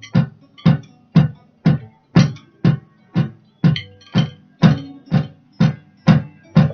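Drum kit playing a steady beat along with a recorded song, about two strong hits a second.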